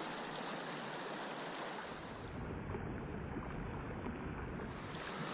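Steady rushing of a flowing river, an even wash of water noise.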